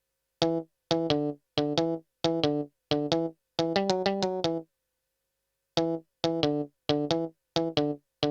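Synthesizer keyboard patch of the kind used on cumbia records, played alone in short figures of quick staccato notes, each figure followed by a brief silence; a longer run comes about four seconds in, then a pause of about a second before the short figures resume.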